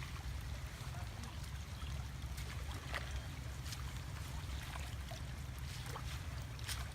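Water sloshing and trickling, with a few short, sharper splashes, over a steady low rumble.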